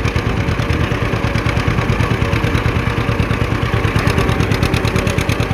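John Deere 50 tractor's two-cylinder engine running steadily at work in the field, with an even, rapid pulsing beat.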